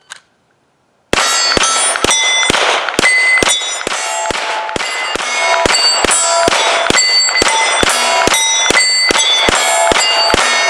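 Rapid fire from a 9mm Glock 17 pistol, starting about a second in at roughly three shots a second, each shot followed by the ringing clang of a steel target being hit, the ring changing pitch from plate to plate.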